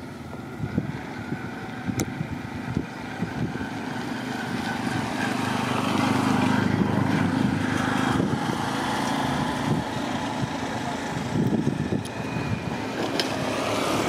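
A motor engine running steadily, growing louder over a couple of seconds about a third of the way in and then holding, with a few scattered low thumps.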